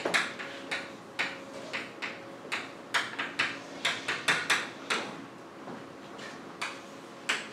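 Chalk striking and scraping on a blackboard while words are written out: a quick, irregular run of sharp taps that thins out after about five seconds.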